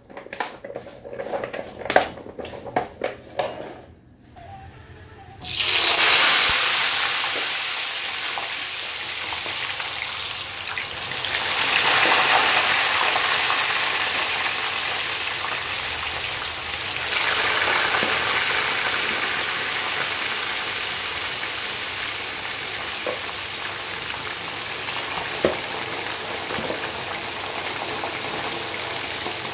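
Raw potato chips knocking and rustling as they are tossed with salt in a plastic bowl. About five seconds in, a loud sizzle starts suddenly as the chips go into hot cooking oil. It swells twice more and then settles into steady deep-frying.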